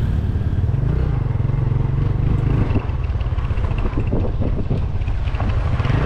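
Small motorcycle's engine running under way with three riders aboard, a steady low rumble. Irregular knocks and rattles come through in the second half.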